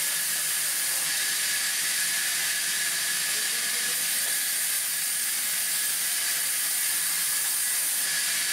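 Band saw running and cutting through a timber plank: a steady, unbroken hiss of the blade in the wood with a thin, constant high whine.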